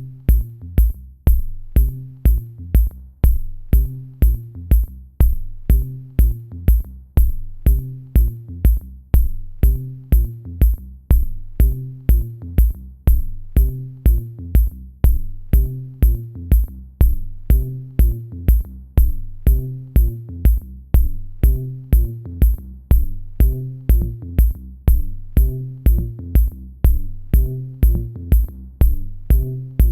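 Electronic background music with a steady drum-machine beat of about two beats a second over a pitched bass line.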